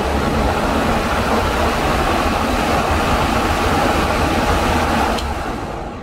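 Electric fan running at full speed on plain 220 V mains: a steady rush of moving air with a low rumble underneath, easing off near the end.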